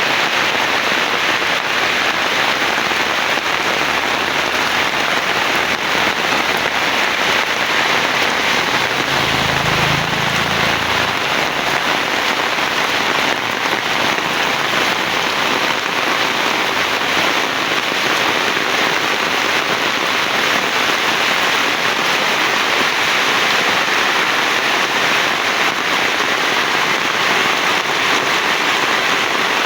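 Heavy rain pouring steadily, a dense even hiss of drops, with a brief low rumble about ten seconds in.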